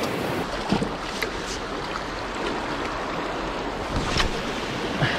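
Steady wash of sea waves with wind noise on the microphone, and a few faint clicks.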